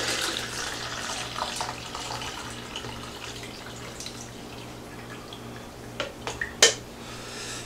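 Vinegar-and-water mix poured from a glass coffee carafe into a small coffee maker's water reservoir, a steady splashing stream that slowly thins out over several seconds. About six seconds in come a few sharp knocks.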